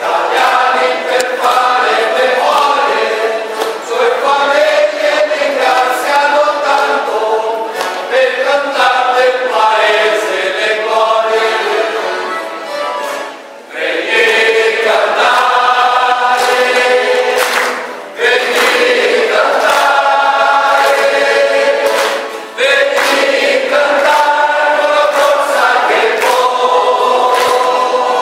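A men's choir singing together. The phrases break off briefly about every four to five seconds in the second half.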